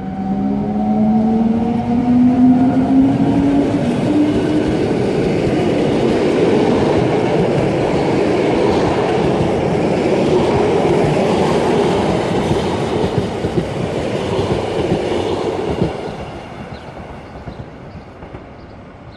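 Rhaetian Railway Ge 4/4 III electric locomotive pulling out with a rising whine from its drive, followed by the rumble and clatter of its passenger coaches' wheels on the rails. The sound fades from about three seconds before the end as the train moves away.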